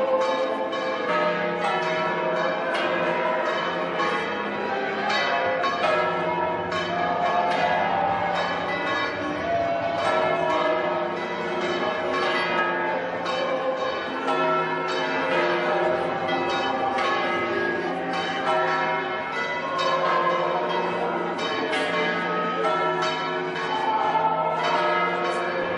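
Church bells pealing continuously, with many overlapping strikes ringing on.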